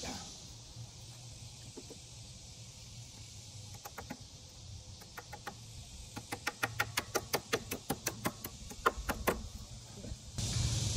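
A hammer drives a nail through a bottle cap into a wooden fence board. A few separate taps about four seconds in become a quick run of about four taps a second, which stops shortly before the end.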